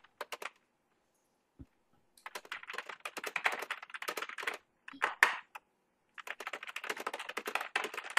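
Fast typing on a computer keyboard: runs of quick key clicks in bursts, with a pause of about a second and a half near the start.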